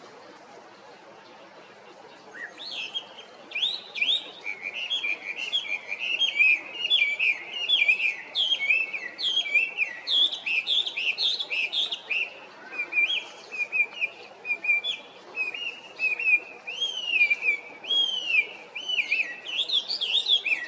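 Chinese hwamei (Hwamei, Garrulax canorus) singing: after about two seconds, a long, varied run of whistled phrases begins, with notes sliding up and down in quick succession.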